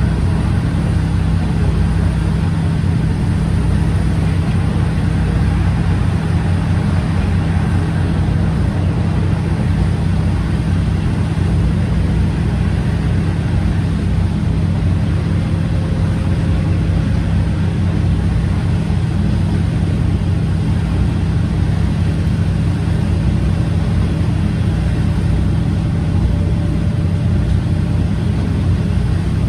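Inside a KiHa 47 diesel railcar under way: its original DMF15HSA horizontal six-cylinder diesel engine running steadily, a low, even drone.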